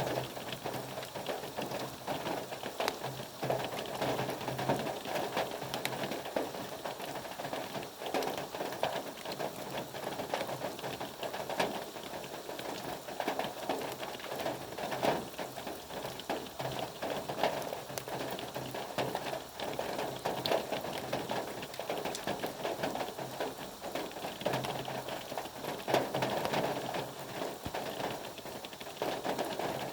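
Steady rain falling, a continuous patter packed with the quick ticks of individual drops striking a surface.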